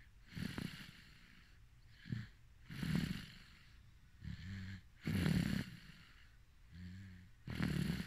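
A sleeping person snoring in a slow, regular rhythm, about three breaths in all. Each breath is a short, low, buzzing snore followed by a louder, raspy rush of air.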